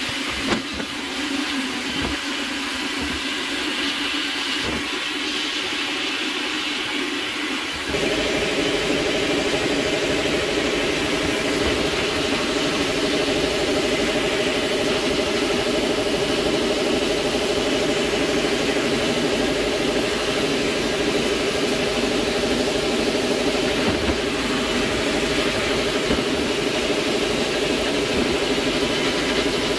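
Vapour blast gun spraying a water-and-abrasive slurry with compressed air inside a blast cabinet: a steady hiss and rush. About 8 s in, a steady machine hum joins and the whole sound gets a little louder.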